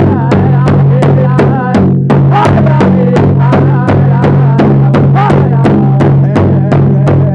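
Powwow drum group singing around a big hand drum: a steady beat of about four to five strokes a second under high, wavering voices.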